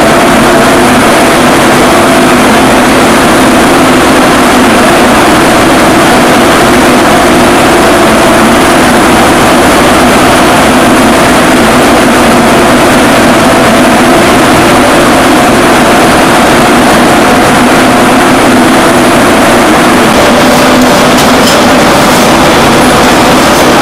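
Textile spinning-mill machinery running: a loud, steady drone of several constant hums over a dense hiss.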